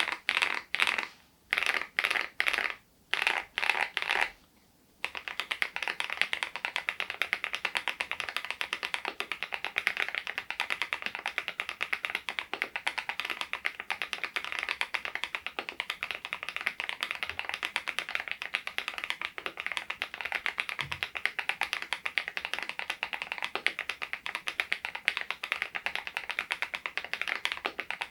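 Fast typing on an SPM PL108W full-size low-noise mechanical keyboard: a few short bursts of keystrokes, then from about five seconds in a continuous rapid run of clicks.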